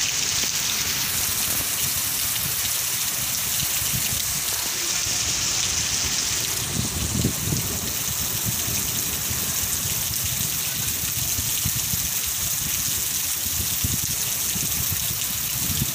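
Heavy rain falling steadily, an even, dense hiss, with a short low rumble about seven seconds in and again near the end.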